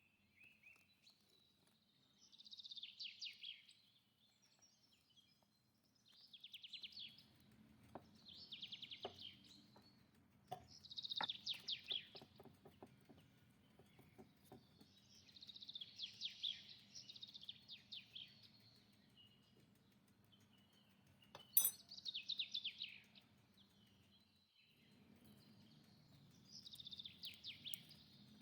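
A small songbird singing in repeated bursts of rapid, trilled chirps, one phrase every second or two, over a faint low hum, with a few soft clicks and one sharp click about three quarters of the way through.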